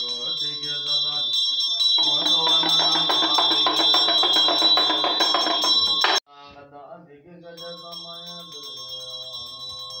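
Tibetan Buddhist ritual music: monks chanting in low, steady voices over a ringing bell. About two seconds in, a much louder passage of rapid rattling strokes joins in, then cuts off abruptly about six seconds in, leaving the bell and the low chant.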